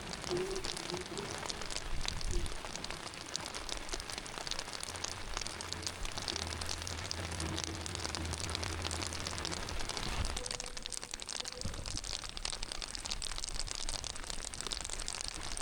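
Heavy rain falling, a dense steady patter of many drops. A low rumble joins in for several seconds mid-way.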